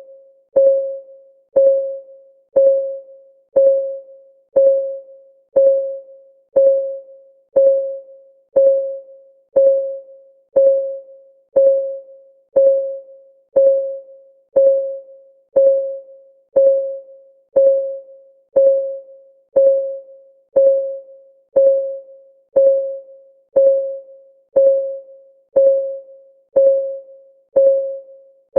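Countdown timer's ticking sound effect: one short pitched tick a second, each a ping that fades quickly, in a perfectly even rhythm.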